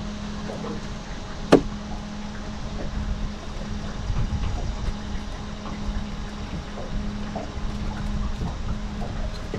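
Water sloshing and trickling around a fishing boat over a steady low hum. One sharp knock sounds about a second and a half in.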